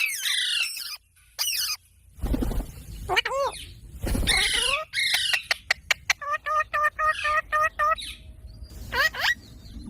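Parrots calling and squawking in short gliding calls, with a string of sharp clicks and then a quick run of about half a dozen evenly repeated notes past the middle. Two short low rustling bursts come in the first half.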